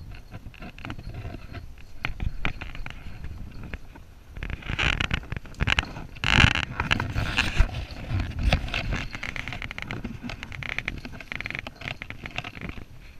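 Rustling and scraping of clothing, branches and bark close to a body-worn camera as its wearer shifts about while sitting in a tree, with scattered clicks; the handling is heaviest for a few seconds in the middle.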